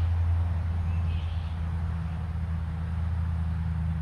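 TimberKing 2000 portable bandsaw mill's engine running steadily, a low even hum that holds the same pitch throughout.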